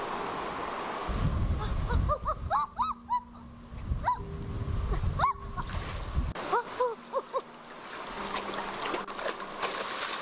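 A run of short, high animal cries, each rising and falling in pitch, starting about two seconds in, pausing, and returning near the end, over low rumbling noise.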